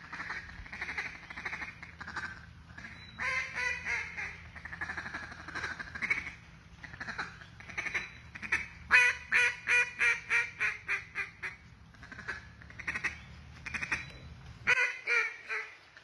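Duck call blown in contest-style calling, mimicking a mallard hen: strings of short quacks, with a loud run of about ten quacks falling slightly in pitch midway through.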